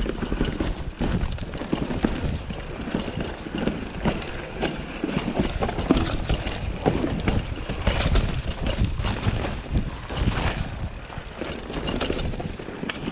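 Mountain bike ridden fast over rough dirt: wind buffets the microphone, and the tyres and frame give frequent knocks and rattles.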